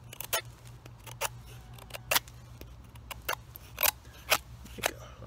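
Straight-bladed knife shaving curls off a dry, dead stick to make a feather stick: about ten short, sharp scraping strokes at an uneven pace.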